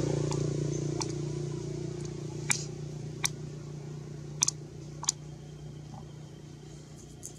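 Dry leaves crackling in about half a dozen sharp, short clicks as a baby macaque picks through the leaf litter, over a steady low hum that slowly fades.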